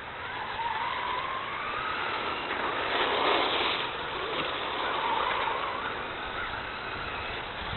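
Small radio-controlled car's motor and drivetrain whining, the pitch rising and falling as the throttle is worked, with a louder rush of noise about three seconds in.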